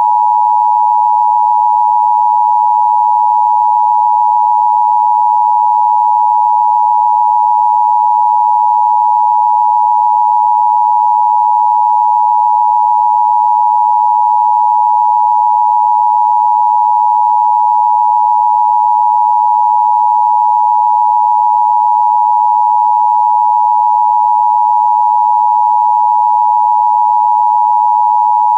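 Emergency Broadcast System attention signal: a loud, steady high tone near 1 kHz, held without a break or any change in pitch.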